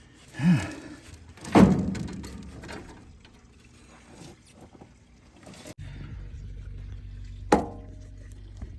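Heavy metal clunks and knocks as a worn steering gear box is worked loose from a truck's frame: a loud knock about a second and a half in, another sharp knock near the end, with a short grunt early on. A steady low hum comes in abruptly partway through.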